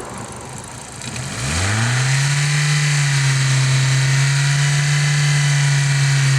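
Toyota four-cylinder engine idling, then revved up about a second and a half in and held at a steady higher speed.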